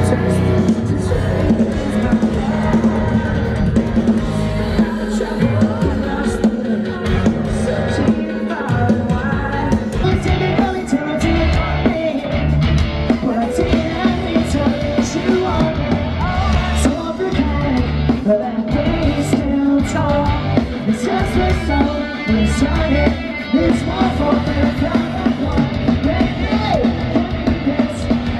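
Loud rock music with a singing voice, electric guitar and a drum kit.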